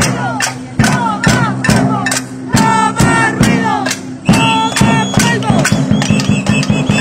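Music with a steady beat, a little over two beats a second, over sustained low notes, with gliding melodic lines above.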